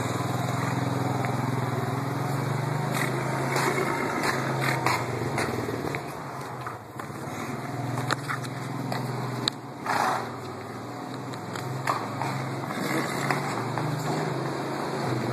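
A motor running steadily with a low hum, with scattered sharp taps of a foal's hooves on a concrete floor.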